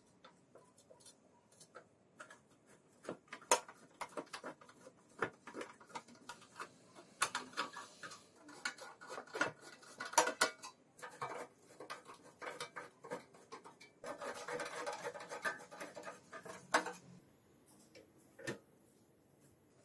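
Small metal parts clinking and clicking as they are handled and fitted, in irregular knocks, with a longer stretch of scraping about three-quarters of the way through.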